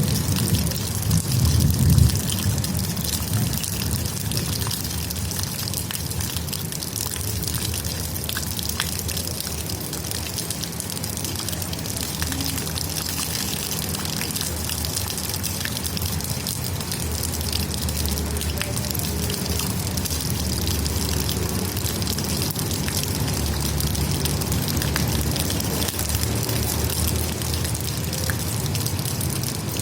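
Steady rain with rainwater trickling and splashing, many small drops ticking through a continuous hiss. There is a low rumble that swells briefly about two seconds in.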